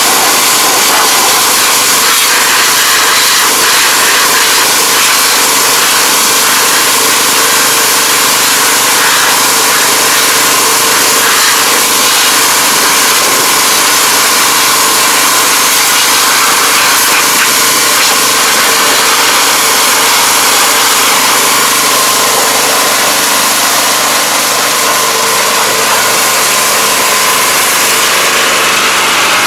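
A pressure washer running steadily: a constant motor hum under the loud hiss of its high-pressure water jet spraying against the rice transplanter's metal frame and planting unit.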